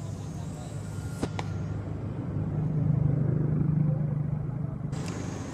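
A motor vehicle's engine hum that swells to its loudest about three to four seconds in and then eases off, as a passing vehicle does. A couple of sharp clicks about a second in.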